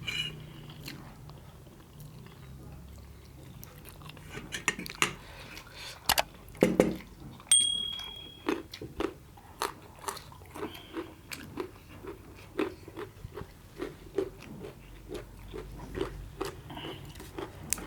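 A person chewing and biting food close to the microphone: scattered sharp crunches, then a steady chewing rhythm of about one to two chews a second through the second half. A brief high ringing tone sounds about halfway through.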